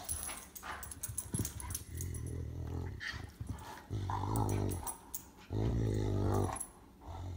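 Great Dane growling low, a series of drawn-out growls each under a second long, the loudest about two-thirds of the way through and another starting near the end.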